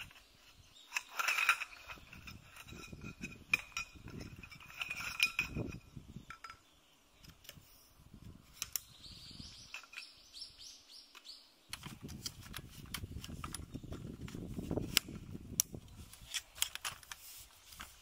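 Segmented metal tent poles clinking and ringing as the bundled sections are handled and pulled apart, with sharp clicks as the sections are fitted together. About two thirds of the way through there is a few seconds of scraping and rustling as the poles are worked on the ground.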